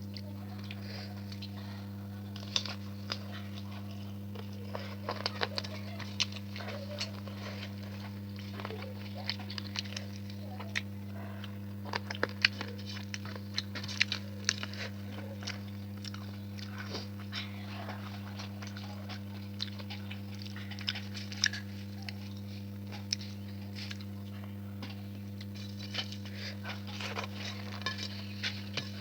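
Close-miked eating: a person chewing and biting food, with many small wet clicks and occasional crunches scattered irregularly throughout, over a steady low hum.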